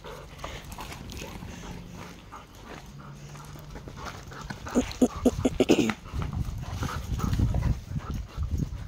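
Two dogs at rough play. Midway there is a quick run of about five short barks or yips, followed by a few seconds of low scuffling noise.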